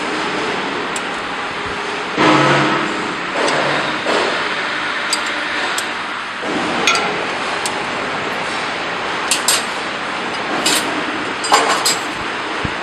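Metal parts and tools being handled and knocked together: scattered light clinks and taps, with a short rattling clatter about two seconds in, over a steady machine hiss.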